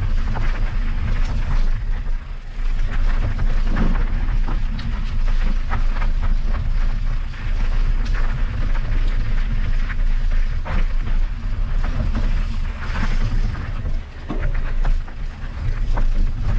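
Wind rumbling and buffeting on the microphone of a mountain bike riding a rough trail, with frequent short rattles and knocks from the bike over the ground.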